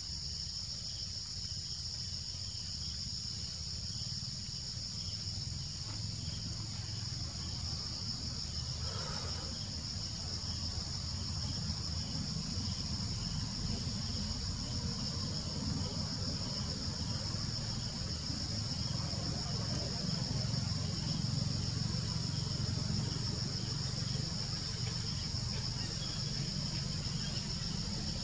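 Steady high-pitched insect chorus, with a faint evenly pulsing insect note beneath it, over a low rumble.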